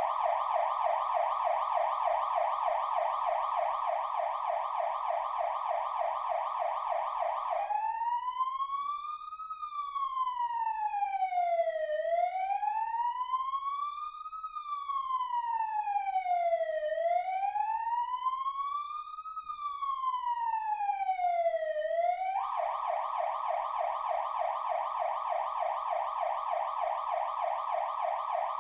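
Electronic emergency-vehicle siren switching modes: a fast yelp for the first seven or eight seconds, then a slow wail rising and falling three times, then back to the fast yelp for the last six seconds.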